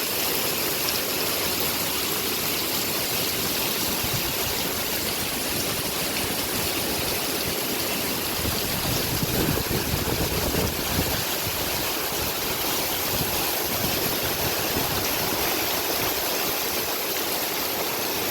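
Hurricane wind and heavy rain as a steady, rushing noise, with a stronger gust and a low rumble about halfway through.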